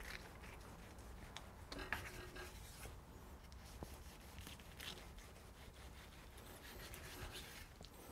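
Faint, irregular scraping of a carving knife sawing through a roast boneless stuffed chicken, with a few slightly louder strokes.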